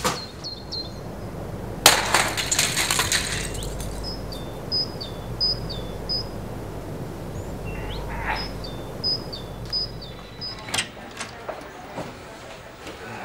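A typewriter smashed: one sharp crash about two seconds in, with metal parts rattling for about a second and a half. A bird then chirps over and over in short, high, falling notes, with a few small clicks near the end.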